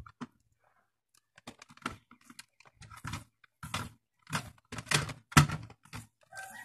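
Vinyl electrical tape being pulled off the roll and wrapped around a wire splice: a string of short, irregular rasps and crackles, starting about a second and a half in.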